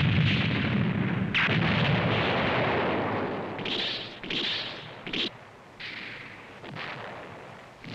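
Animated-battle explosion sound effects: a long rumbling blast over the first few seconds, then a quick string of shorter blasts around the middle and a few fainter ones near the end.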